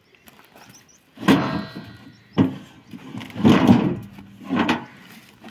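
Heavy chestnut logs shifted and dragged across a steel trailer bed: four loud scrapes and knocks about a second apart, the first with a metallic ring.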